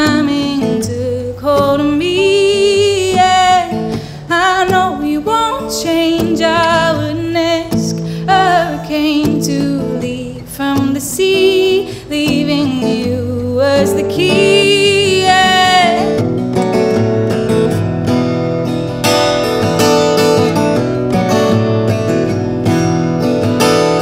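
A woman singing with her own acoustic guitar. About two-thirds of the way through the voice stops and the guitar carries on alone, strummed.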